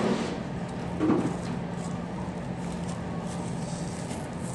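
Steady low mechanical hum over a wash of room noise from a charcoal lamb-skewer grill with automatic rotating skewers and an extraction hood, with a brief murmur of a voice about a second in.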